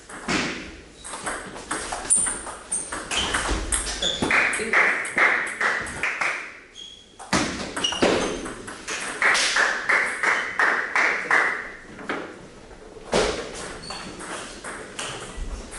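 Doubles table tennis rallies: the celluloid-type ball clicking back and forth off rubber-faced rackets and the table in quick alternating strokes. There are two long rallies with a short break between them, then a brief third exchange near the end.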